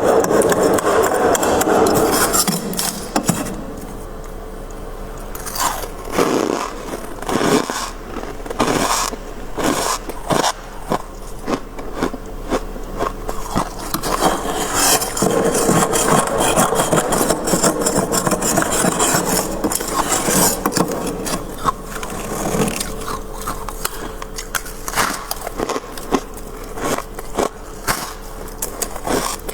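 Crisp, irregular scraping and crunching of freezer frost as it is scraped up and eaten, a dense run of little crunches, quieter for a few seconds near the start.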